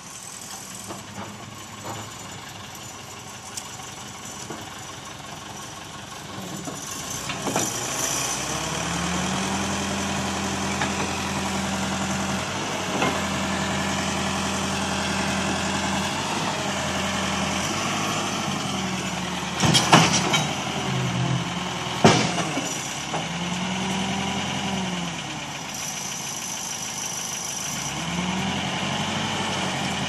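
Tractor loader-backhoe's diesel engine idling, then revving up about eight seconds in and rising and falling repeatedly as it works the backhoe's hydraulics. Two sharp knocks come about two-thirds of the way through.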